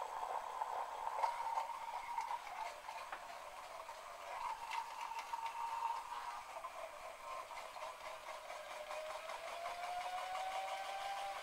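NSD Powerball gyroscopic wrist trainer's rotor spinning at about 16,000 rpm, a steady whine with a buzzing rattle from the ball's casing. The pitch sags in the second half and starts climbing again near the end as the wrist drives the rotor back up.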